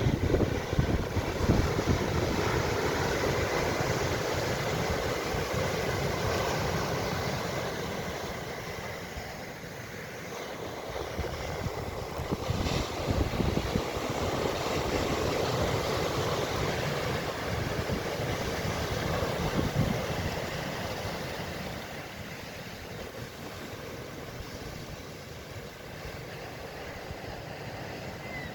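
Ocean surf washing in and easing off in slow swells, with wind buffeting the microphone.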